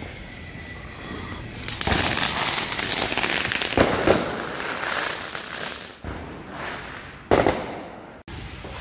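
Ground firework spraying sparks, hissing and crackling loudly from about two seconds in, with two sharp pops near the middle and another near the end. The sound cuts off suddenly.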